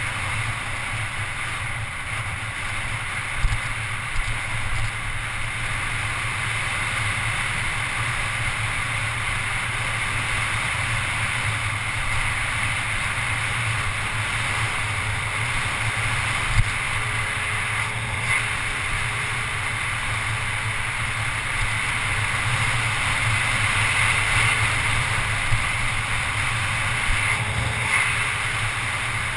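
Steady wind rush on a GoPro HD's microphone as a mountain bike speeds down a paved road, mixed with tyre noise on the asphalt. A few short knocks stand out, one at about a third of the way through.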